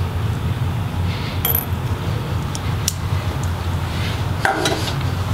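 Small laptop screws clinking as they are set down: a few light metallic clicks with a short bright ring, over a steady low hum.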